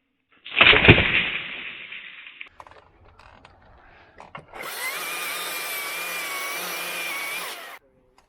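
Electric chainsaw running for about three seconds with a steady whine, cutting off sharply near the end. About half a second in, a sudden loud sound starts and dies away over about two seconds.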